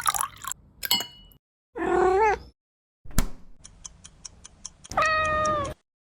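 A domestic cat meowing twice: a short wavering meow, then a longer, steadier one about three seconds later. Between them come a sharp knock and a quick run of faint ticks.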